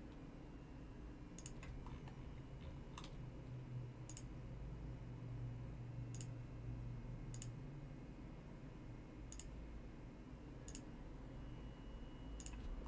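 Computer mouse button clicking about eight times, a second or two apart, as anchor points of a path are placed one by one with Photoshop's pen tool, over a faint steady low hum.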